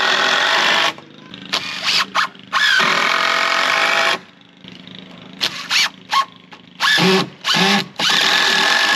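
Cordless drill driving screws into a wooden brace, run in several bursts with short pauses between them, the longest about a second and a half, each with a motor whine over the noise of the screw biting into the wood.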